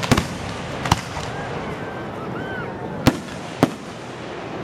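Aerial fireworks shells bursting: a quick double bang at the start, another about a second in, and two more about three seconds in.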